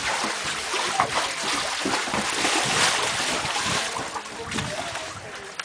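Water splashing and sloshing around inflatable water-walking balls as the people inside them roll and tumble on a pool: an uneven rushing noise.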